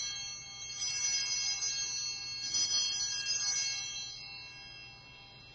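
Altar bells ringing at the elevation of the host after the consecration: a bright ringing of several high tones that swells again about a second in and then fades away.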